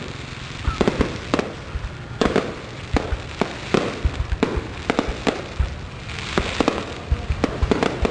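Aerial firework shells bursting in quick, irregular bangs, several a second.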